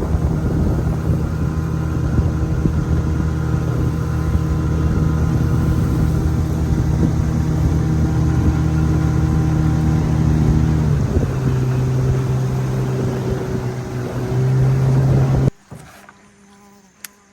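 Boat motor running steadily, its pitch dropping about eleven seconds in and lifting slightly near the end, then cutting off suddenly.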